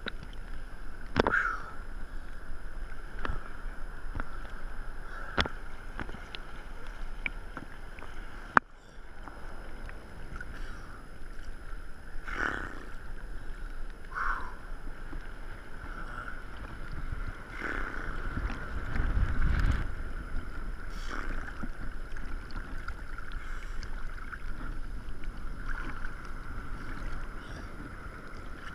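Small ocean swells lapping and sloshing against a waterproof action camera riding at the water's surface. There are scattered sharp clicks, and a louder low rumble comes about two-thirds of the way through.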